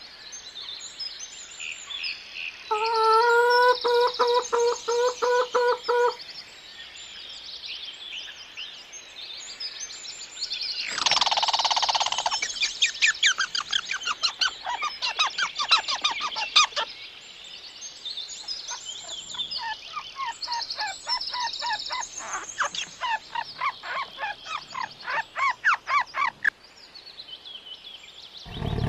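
Birds calling: many high chirps throughout, with a run of rapid, evenly pitched calls a few seconds in and long fast trills later on.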